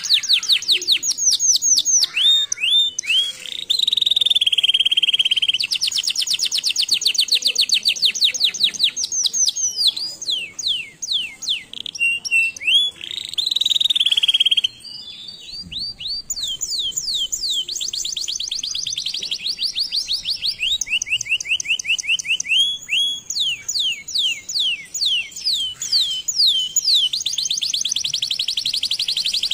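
Domestic canary singing a long, continuous song of rapidly repeated notes, switching every few seconds between fast rattling trills and slower, fuller rolled phrases, with a short break about fifteen seconds in.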